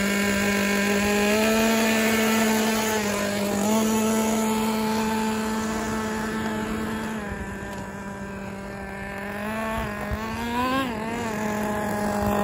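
Traxxas T-Maxx 2.5 nitro RC truck's small two-stroke glow engine running at a high, steady buzzing pitch, stepping up a notch twice in the first few seconds. Around seven seconds in it grows fainter as the truck moves off, then the revs rise and fall near the end.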